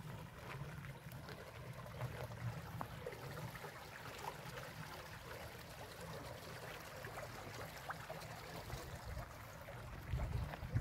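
Shallow stream trickling steadily. Wind rumbles on the microphone, gusting harder near the end.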